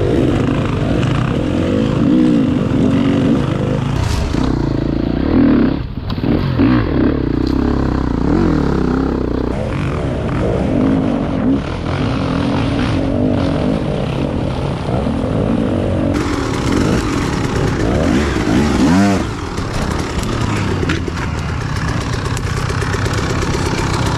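Dirt bike engine close by, revving up and down as it is ridden over rough woods trail, its pitch rising and falling again and again. The sound changes abruptly several times.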